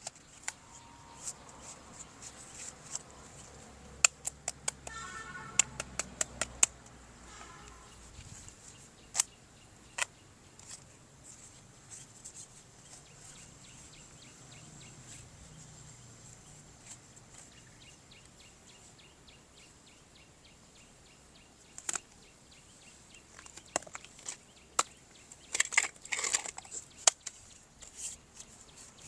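Scattered sharp clicks and taps with faint handling noise between them, typical of plastic toy parts being handled and fitted together. The clicks come in a quick run about a third of the way in and a busier run near the end.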